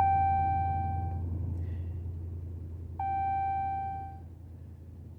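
Car dashboard chime sounding twice, about three seconds apart. Each is a single bell-like tone that fades away over about a second, over a steady low hum of the car.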